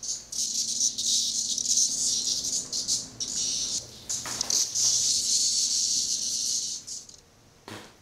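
Cicadas buzzing while being handled, a harsh, high rasp broken by short gaps. It stops near the end, followed by a single sharp knock.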